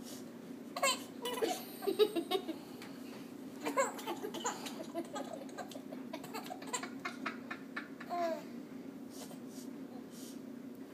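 Baby laughing and giggling in short bursts of laughter mixed with babbling, loudest about two seconds in, with a steady low hum underneath.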